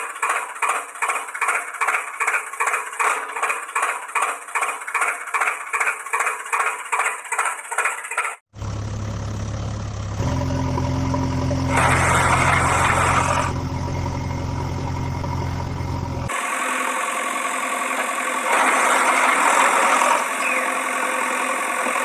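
Recorded vehicle engine sounds dubbed over toy vehicles. First an engine chugs in a steady rhythm of about three beats a second; a little after eight seconds it cuts off sharply. A deeper, steady engine hum then takes over and swells louder twice.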